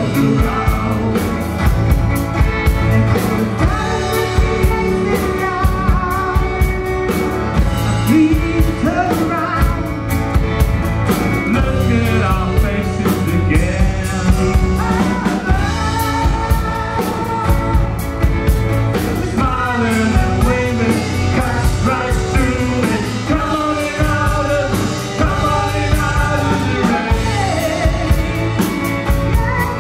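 Live rock band playing a song: a man singing lead with a woman singing harmony, over acoustic guitar, drum kit and violin, with a steady beat.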